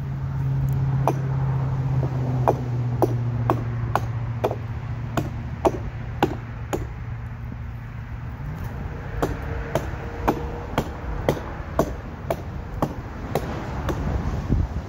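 Hatchet chopping into a fallen tree branch, with sharp strokes about two a second and a short break about halfway through.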